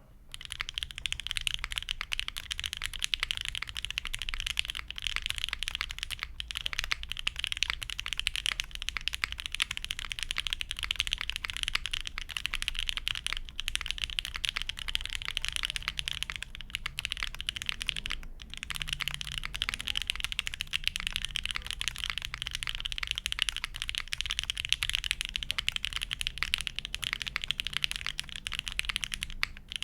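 Fast, continuous typing on a mechanical keyboard with linear Gateron Box Ink Black V2 switches on an undampened aluminium plate, under GMK ABS keycaps. The keys make a dense clatter with a few short breaks, about 6, 13 and 18 seconds in.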